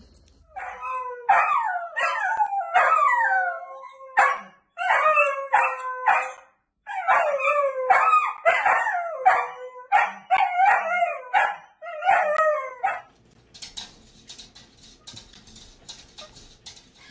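Dachshund howling: a run of long, wavering howls with yips mixed in, broken by two short pauses, which stops abruptly about 13 seconds in. A faint hiss with soft clicks follows.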